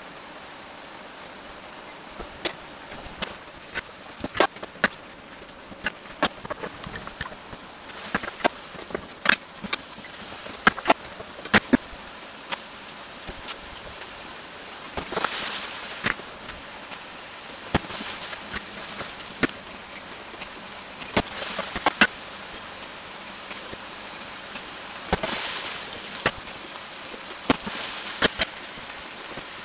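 Sliced onions frying in a large metal frying pan: a steady sizzle with frequent sharp pops and crackles. Near the end a hand stirs them with a wooden spatula.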